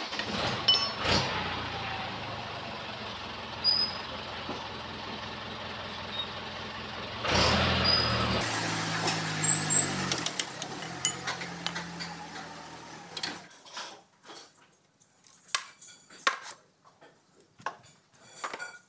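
A machine running steadily, a hiss over a low hum, louder for about a second some seven seconds in; it stops about thirteen seconds in, leaving scattered sharp metal clinks of tools and parts being handled.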